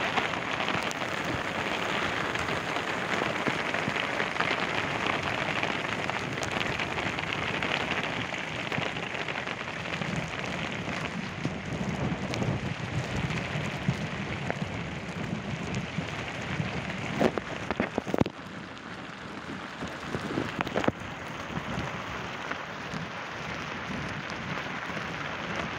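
Rain falling steadily in a dense hiss, with a few sharp knocks about two-thirds of the way through.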